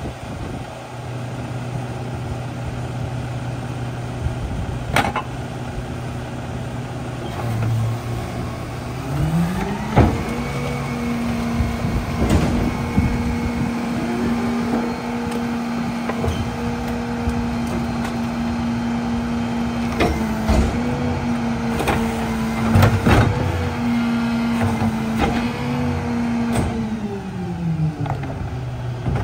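Mack LEU garbage truck's engine idling, then about nine seconds in speeding up to a steady higher speed to drive the McNeilus rear loader's hydraulic cart tipper as plastic carts are dumped into the hopper, with several sharp clanks and bangs. Near the end the engine drops back to idle.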